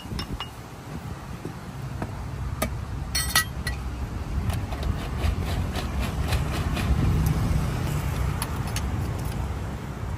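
Light metallic clinks and taps of stainless espresso tools (portafilter and dosing cup) being handled against the bar mat and counter, with a quick cluster of sharp clinks about three seconds in. Under them runs a steady low rumble that swells past the middle and eases off near the end.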